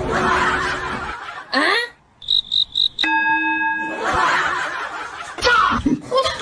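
A string of edited-in comic sound effects: a quick rising whoosh, four short high beeps about two seconds in, then a steady electronic tone held for about a second, with noisy stretches around them.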